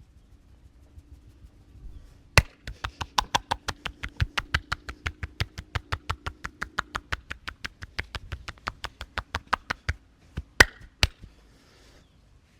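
Hands striking the body in a fast, even chopping massage rhythm, about five or six strikes a second for some seven seconds. This is followed by two louder slaps about half a second apart.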